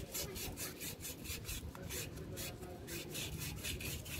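Fine sandpaper rubbed by hand over a small metal brake caliper part to clean off old grease and dirt, in quick, even back-and-forth strokes, about four a second.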